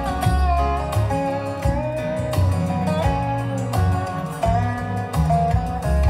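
Bose SoundTouch 30 wireless speaker playing a country song with guitar, a melody gliding between held notes over a steady bass.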